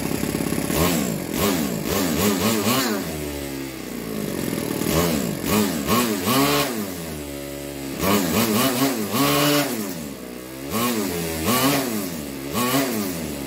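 Bored-out OS FS-40s four-stroke glow model engine, fitted with an 8 mm carburetor, running and revved up and down repeatedly as the throttle is opened and closed. It runs very well and picks up speed sharply each time the carb opens.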